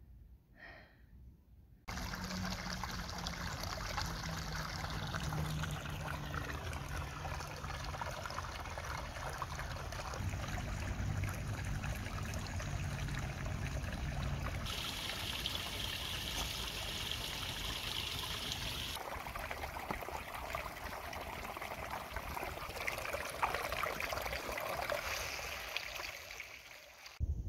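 Small mountain stream trickling and splashing over rocks, a steady rush of running water that starts suddenly about two seconds in. Just past the middle it turns brighter and hissier for about four seconds.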